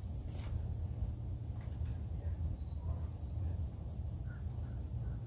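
Quiet background: a steady low hum with a few faint, brief high chirps from birds.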